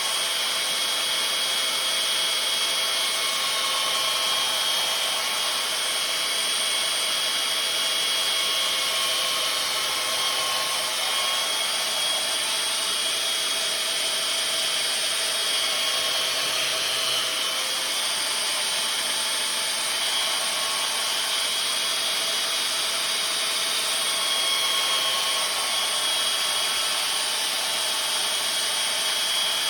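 Small electric power tool running steadily, grinding the steel edge of a splitting maul during sharpening, with a faint whine over the grinding noise.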